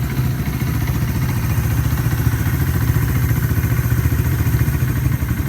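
Suzuki Intruder 125 motorcycle engine idling steadily through an aftermarket slash-cut (chamfered) custom exhaust, with a deep, even exhaust note.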